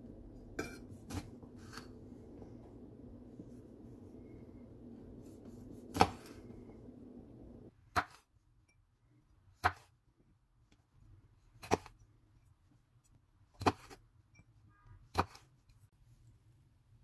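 Chef's knife cutting through grape tomatoes and knocking on a wooden cutting board: single sharp knocks, one every one and a half to two seconds. A low background hum underneath stops suddenly about halfway through.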